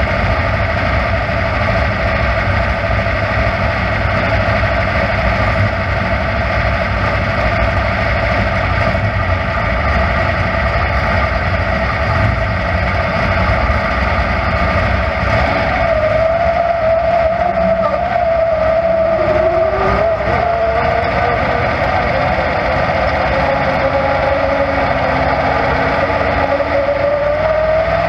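Dirt-track stock car's engine running steadily at low speed, heard from inside the cockpit, with its pitch rising near the end as the car pulls onto the track.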